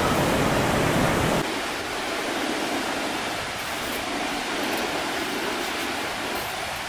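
Steady rush of ocean surf. About one and a half seconds in it cuts abruptly to a quieter, thinner wash without the low rumble.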